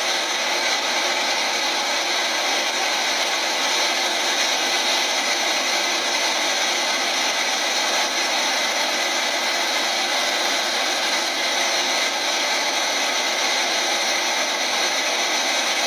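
Fast, turbulent river water rushing over stones: a steady, even rushing noise.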